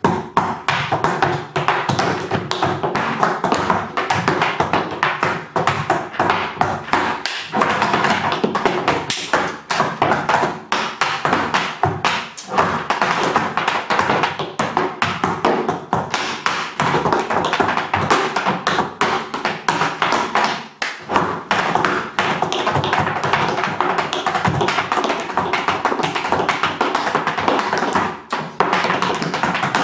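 Tap shoes' metal taps striking a raised wooden tap board in a fast, dense stream of tap-dance steps, with a few short breaks.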